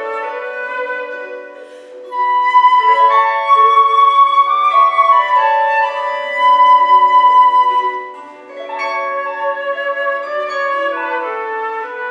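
Concert flute playing a folk-style melody, accompanied by a plucked gusli. The flute line swells louder and climbs higher from about two seconds in, falling back near the end.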